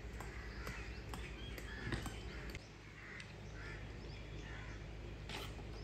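Birds calling in short, scattered calls, with faint regular knocks about twice a second from soldiers' boots marching on pavement.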